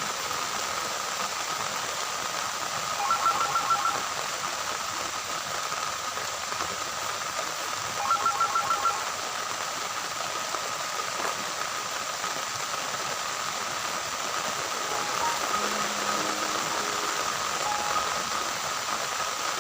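Steady hiss with two bursts of rapid electronic beeps like a phone ringtone, about five quick pulses each, a few seconds apart; near the end a short run of stepping electronic tones begins.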